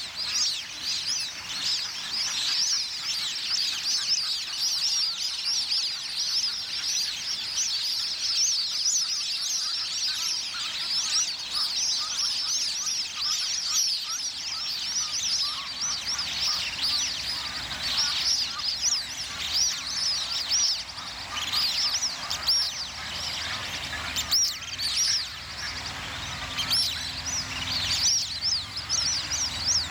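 A flock of plumed whistling ducks giving a continuous chorus of shrill, overlapping whistles that quickly rise and fall, the squabbling calls of birds disputing territory.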